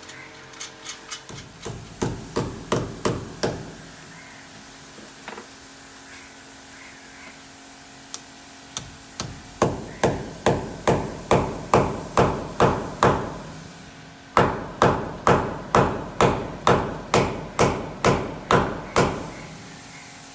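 Repeated hammer blows, about two a second, in three runs with short pauses between, each strike ringing briefly; the first run builds from lighter taps to harder blows.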